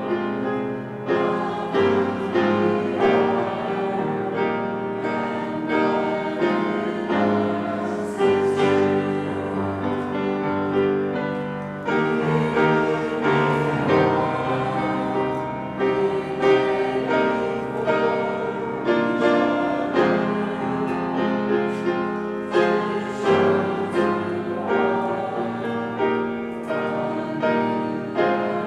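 Grand piano playing a hymn, with a congregation singing along.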